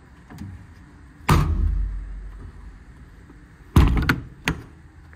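Metal compartment doors of a truck's utility service body slammed shut twice, about two and a half seconds apart, the first bang trailing a low boom for about a second. A lighter knock follows half a second after the second bang.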